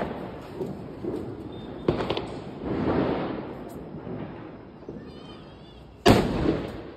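Ground firecracker going off with one sudden loud bang about six seconds in, after a few fainter sharp cracks.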